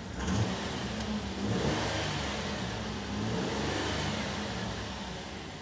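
Holden Commodore 3.6-litre V6 engine, heard from inside the cabin, revved from idle to about 3,000 rpm about a second and a half in, held there, then easing back off near the end.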